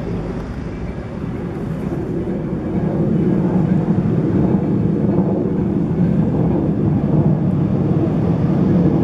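Steady low rumbling noise, like a vehicle running or traffic, growing louder about three seconds in.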